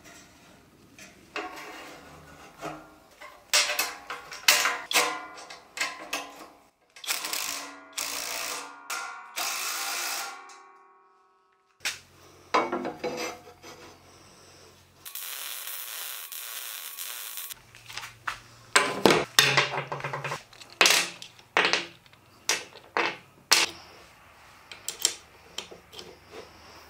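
Workshop assembly sounds: a cordless impact driver running in short rattling bursts among knocks and clatter of steel parts being handled. A steady hiss of about two and a half seconds comes in the middle.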